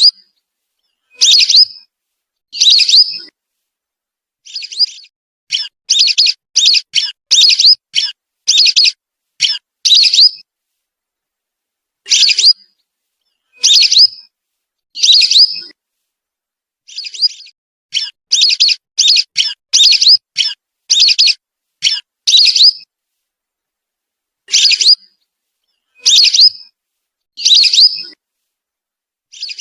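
Whistling duck (belibis) calls played as a lure recording. Short, high whistled calls come singly and in quick runs of several, with dead-silent gaps between them.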